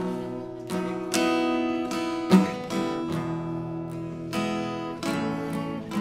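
Acoustic guitar intro: chords strummed and picked one after another, each left ringing, with one sharper, louder strike about two seconds in.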